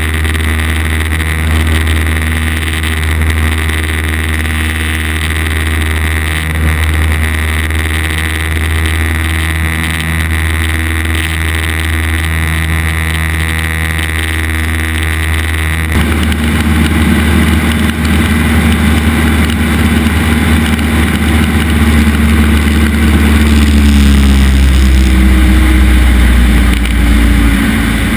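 Cessna 172's piston engine and propeller running steadily, heard from inside the cabin. About halfway through the sound turns suddenly louder and harsher, and its tones climb slightly near the end.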